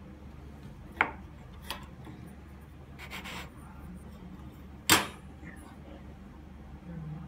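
Kitchen handling noises from a fluted stainless-steel round cutter: two light clicks, a short scraping rub about three seconds in, then a sharp metallic knock just before five seconds as the cutter is set down on the steel counter.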